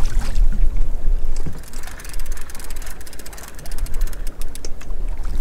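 Fishing reel being wound in, its mechanism clicking rapidly for about two seconds, over a steady low rumble of wind on the microphone.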